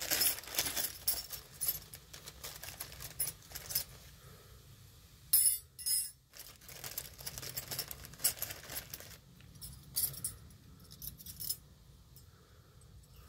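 Small metal clicks and clinks of new brake pad clips being handled and pressed into a new caliper bracket, with a couple of louder clacks about five to six seconds in.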